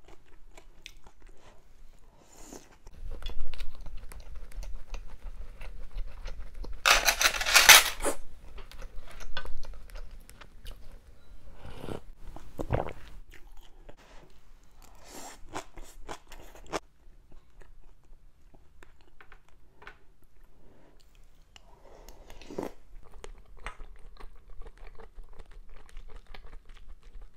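Close-miked chewing and crunching of spicy fish roe stew with bean sprouts and fish milt. A loud rush of noise lasting about a second comes some seven seconds in.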